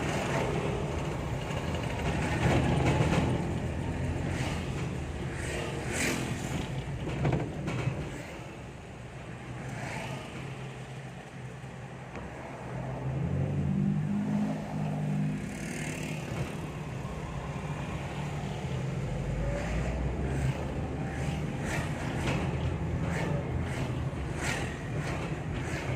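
A road vehicle on the move, with steady engine and road noise. The engine rises in pitch about halfway through as it speeds up, and short knocks and rattles come now and then.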